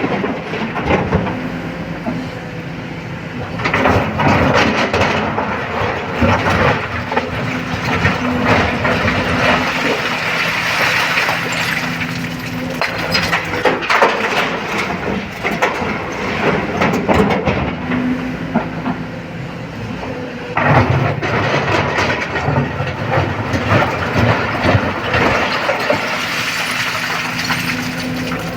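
Excavator's diesel engine running under load while loading stone, with rocks clattering and grinding in the bucket and tumbling into a dump truck body. The clatter gets louder in two bouts, about 4 seconds in and again about 21 seconds in.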